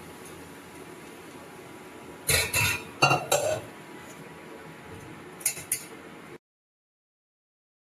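Metal cookware clinking and knocking as a pot and strainer are handled while boiled vegetables are strained. There are three short clusters of clinks over a faint steady hiss, then the sound cuts off to dead silence about six seconds in.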